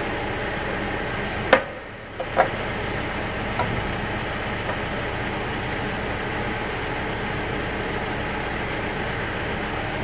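Steady engine-like mechanical hum, with two sharp clicks about a second apart near the start and a brief drop in level between them.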